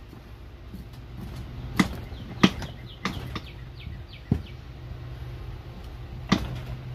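Pry bar and screwdriver levering the third gear drum loose from a Honda Odyssey automatic transmission: a handful of sharp metal clicks and knocks at uneven intervals, with faint short squeaks between some of them. A steady low hum runs underneath.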